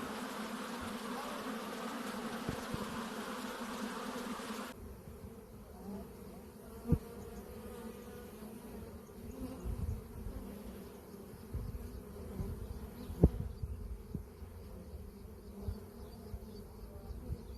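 Honey bees buzzing in a steady hum. About five seconds in the sound changes abruptly, the buzzing going on over a low rumble, with two sharp knocks about six seconds apart, the second the loudest.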